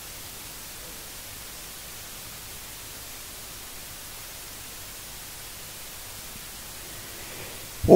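Steady, even hiss of the microphone and sound-system noise floor, with no other sound in it. Right at the very end, a man's voice starts up loudly into the microphone in melodic Quran recitation (tilawat).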